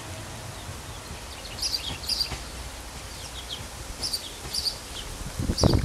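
Birds chirping in short bursts over the low, steady rumble of an approaching diesel railcar. Near the end a burst of loud knocking, typical of the wheels crossing rail joints, comes in as the railcar draws closer.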